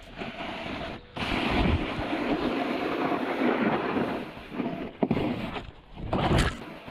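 Snowboard sliding and scraping over hard-packed snow, with wind rushing over the body-mounted camera's microphone. Near the end there is a brief louder hit as the rider goes down.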